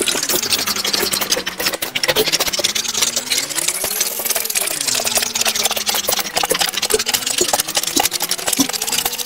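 Plastic spirograph gear wheels rolling around toothed rings while ballpoint pens scratch across paper: a dense, rapid, continuous clicking and scratching. Faint tones slowly rise and fall underneath, a few times over.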